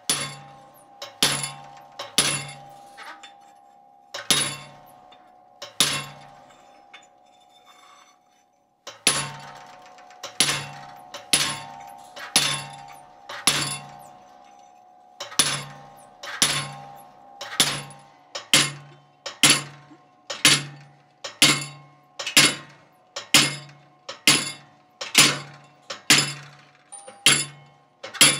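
Treadle hammer repeatedly striking a handled chisel set on a steel bar, cutting a decorative groove line. Sharp metallic blows come about once a second, each ringing on between strikes, with a pause of a couple of seconds near the middle.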